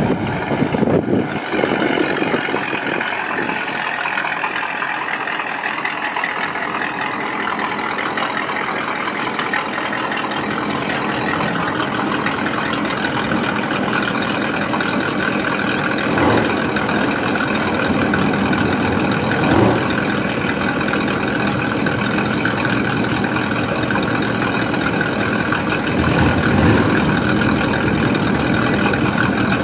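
Drag pickup truck's engine idling steadily, with a few brief swells in level about halfway through and near the end.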